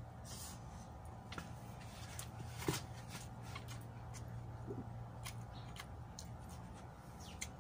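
Close-up eating sounds: chewing and lip-smacking on a mouthful of chicken adobo and rice eaten by hand, a string of small wet clicks with the sharpest about two and a half seconds in, over a faint steady hum.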